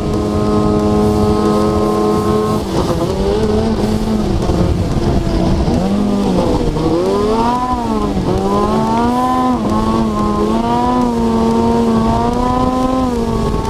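Snowmobile engine running hard on a trail, holding a steady pitch for the first couple of seconds, then dropping and rising again several times as the throttle is eased and reopened, over a steady rush of noise.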